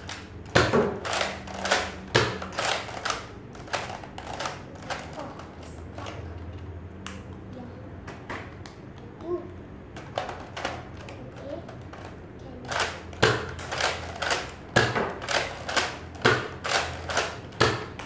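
Nerf Delta Trooper dart blaster being primed with its top slide and fired over and over: a quick run of sharp plastic clacks near the start, a few scattered clicks, then another run of about a dozen clacks in the last five seconds.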